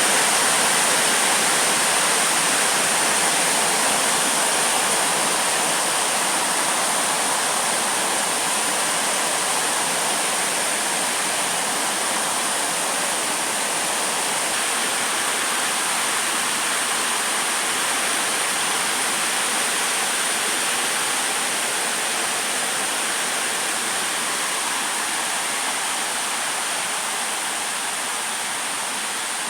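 Heavy rainstorm downpour, a steady loud hiss of rain that eases slowly toward the end.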